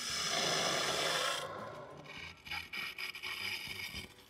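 Air and water rushing through a just-opened ball valve as a whole-house carbon filter tank is flushed, with air coming through from the top of the tank. A steady hiss eases after about a second and a half into uneven sputtering.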